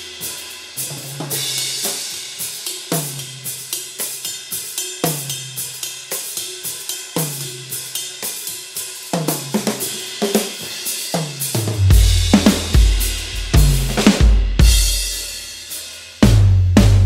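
Groove Drum Co. pancake drum kit with Paiste cymbals played as a steady groove, heard through the overhead microphones: hi-hat and cymbal ticks over snare and tom strokes. About twelve seconds in, heavy bass-drum hits join and the playing gets louder.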